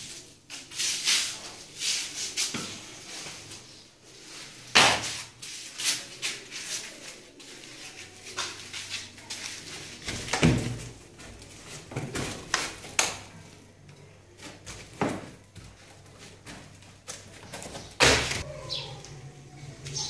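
Irregular thuds and slaps of a child jumping and landing on a concrete floor, with scuffing footsteps between them. The loudest landings come about five seconds in and again near the end.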